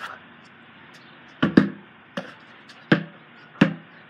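Basketball being dribbled: sharp, regular bounces starting about a second and a half in, roughly one every two-thirds of a second.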